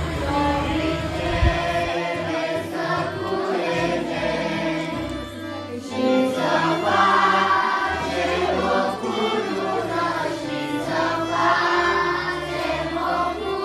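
Background music: a song sung by a choir of voices over a steady bass line.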